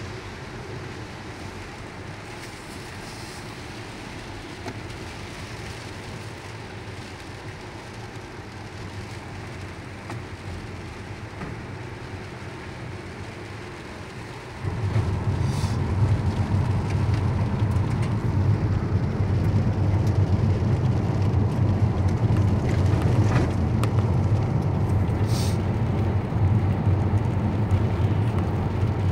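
Car driving on a wet road in the rain, heard from inside the cabin: steady road and rain noise that, about halfway through, jumps suddenly to a much louder low rumble and stays there.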